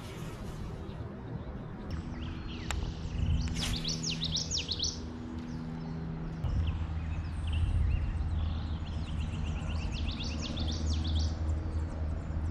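A songbird singing two bouts of quick, repeated high chirps, over a steady low hum that grows stronger about halfway through.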